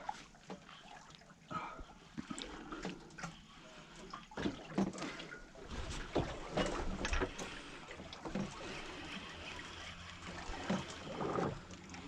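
Water lapping and splashing against a small boat's hull, with scattered light knocks and clicks.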